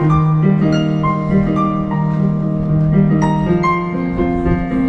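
Piano played live: a melody of distinct, ringing notes over held bass notes.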